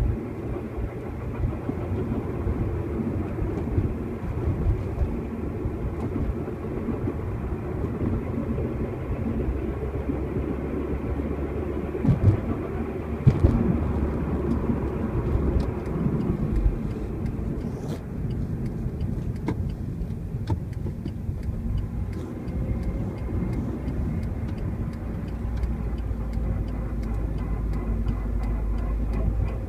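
Car driving: steady low road and engine rumble, with a few sharp knocks about twelve to thirteen seconds in.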